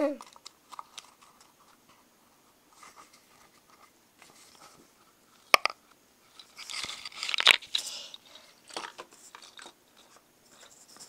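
Small objects handled on a desk: scattered light clicks and rustling, with one sharp click about five and a half seconds in and a louder spell of scraping and rustling a second or so later.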